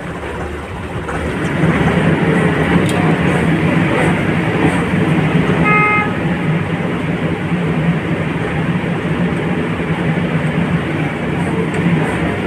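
Heavy engine of concrete-pouring machinery running steadily with a low drone, getting louder about a second and a half in. A single short horn beep sounds about six seconds in.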